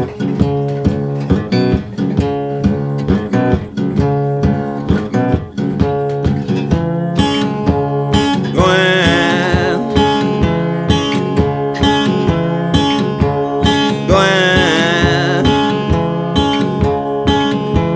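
Background music: an instrumental stretch of a country song, with strummed acoustic guitar over a steady beat. Two short wavering lead phrases come in, about halfway through and again near the end.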